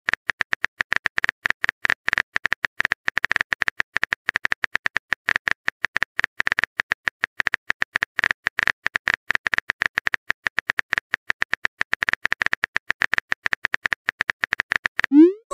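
Phone keyboard typing sound effect: rapid, continuous soft key-tap clicks as a text message is typed out. A short rising swoosh comes near the end.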